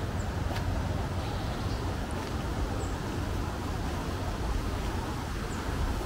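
Steady low outdoor rumble under a forest walk, with a few faint, short high chirps from small birds and soft footsteps on the path.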